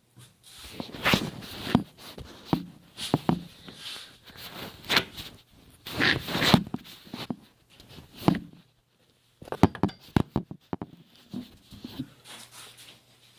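Irregular knocks, clanks and scrapes of tools working against metal bicycle parts to force off a stuck part, with a quick run of sharp clicks about ten seconds in.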